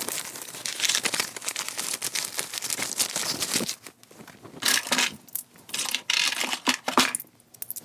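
Cellophane-wrapped lollipops crinkling and a cardboard honor box rustling as hands dig through it, with small clicks and clinks of coins among the rustle.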